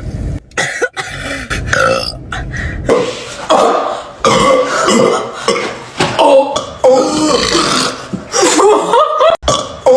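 Girls burping: a string of long, loud burps, one after another, several with a wavering pitch.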